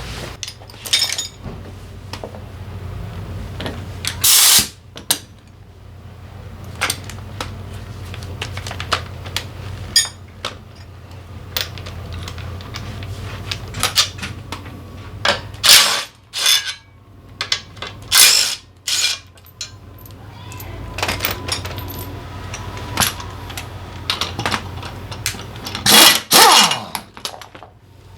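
Metal tools and engine parts clinking and knocking during the disassembly of a Honda PCX 125 scooter engine, with several louder bursts of about a second each over a low steady hum.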